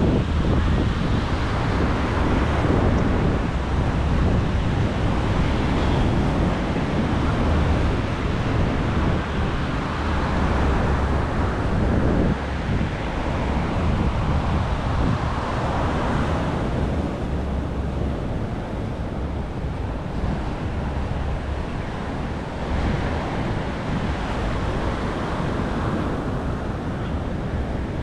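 Wind buffeting the microphone with a heavy low rumble, over the steady wash of surf on a sandy beach.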